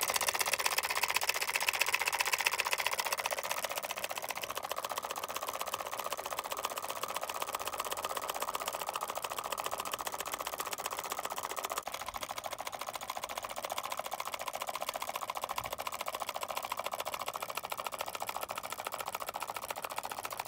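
Homemade two-coil electromagnetic engine running, a steady, fast mechanical clatter like a sewing machine as its coils pull the pistons and crank.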